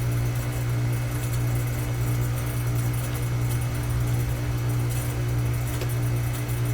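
Air-conditioning unit running, a steady low hum with no change in level. A faint click comes near the end.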